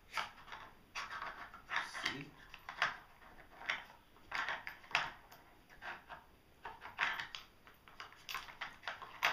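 Plastic pieces of a Nina Ottosson Dog Finder puzzle toy clattering and knocking as a small dog noses and pushes them around while hunting for hidden treats. There are irregular short clacks, a couple a second.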